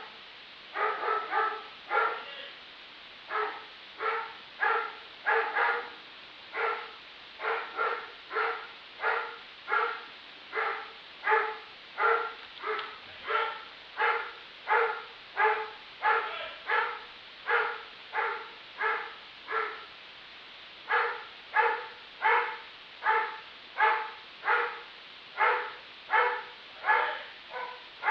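A dog barking over and over in single barks at a steady pace, about three every two seconds, with one short pause about two-thirds of the way through.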